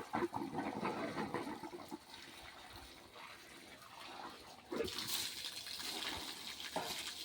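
Water splashing and gushing as an elephant bathes herself; the rush of water dies down in the middle, then a louder, hissing gush starts about five seconds in.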